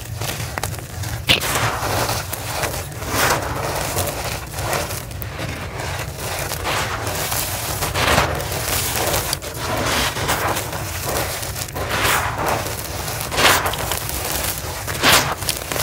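Hands crushing and crumbling dry lumps of gritty charcoal powder: a continuous gritty crunching as the lumps break apart and fall onto the powdery floor, with sharper crunches every few seconds.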